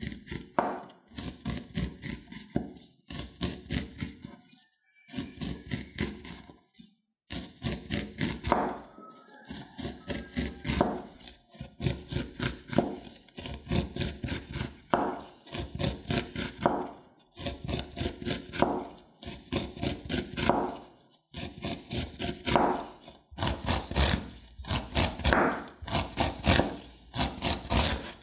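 Chef's knife slicing kernels off a corn cob: rapid, repeated crisp cuts through the kernels and onto an end-grain wooden cutting board. The cuts come in runs broken by short pauses.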